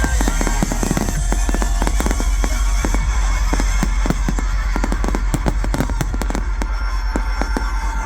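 Fireworks bursting and crackling in rapid, dense succession over a loud show soundtrack with heavy bass.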